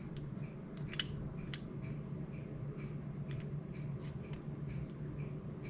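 Faint clicks and soft handling sounds of a guava's skin being peeled, over a steady low hum. A faint short high chirp repeats about twice a second.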